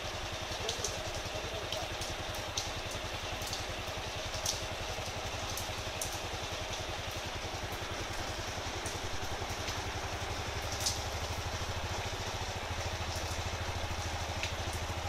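Motorcycle engine idling steadily under heavy rain, with the hiss of the rain and occasional sharp ticks of drops.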